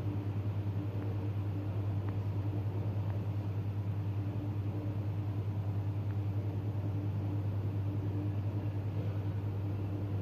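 Domestic cat purring steadily: a low, even rumble with a fast flutter, with a few faint clicks from its tongue as it licks its fur.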